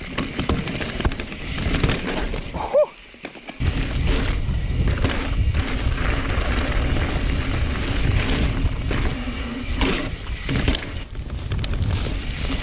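2020 Norco Sight C3 full-suspension mountain bike descending a dirt trail: tyres rolling and sliding over loose dirt, with knocks and rattles from the bike, under a heavy low rumble of wind on the action camera's microphone. The noise drops away briefly about three seconds in, then comes back.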